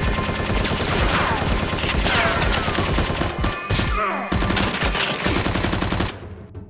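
Rapid, continuous machine-gun fire sound effect, with a brief break about four seconds in, cutting off suddenly about six seconds in.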